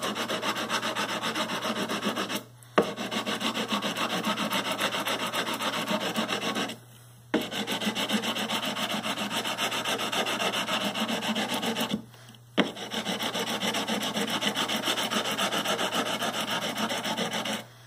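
Sandpaper on a wooden radius block scraping in rapid back-and-forth strokes across the metal frets of a Fender Stratocaster neck. This is fret levelling and radiusing to take down high frets that cause buzzing and fretting out. The strokes come in four runs with brief pauses between them.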